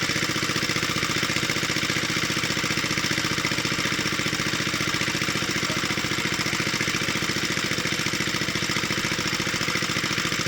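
Small engine running steadily at an even speed, with a regular low pulse.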